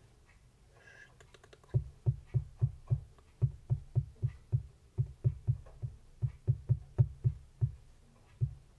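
Fineliner pen tip tapping dots onto paper in stippling, a run of sharp taps about three or four a second, starting about two seconds in and stopping near the end.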